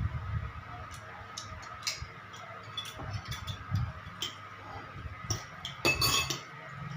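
Spoon and fork clinking and scraping against a plate, in scattered light taps, with a louder ringing clink about six seconds in.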